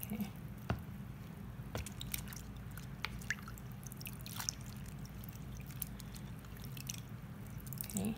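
Brine dripping and trickling off a handful of pickled mustard greens as they are lifted out of a plastic container, with scattered small wet drips and squishes.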